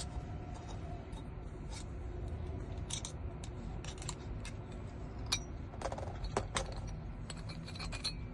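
Scattered small metal clicks and taps of a door lock being taken apart to remove its cylinder, with a few sharper clicks about six seconds in.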